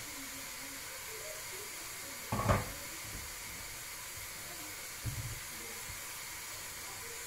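Steady hiss of a lit gas stove burner, with a short muffled thump about two and a half seconds in and a fainter one about five seconds in.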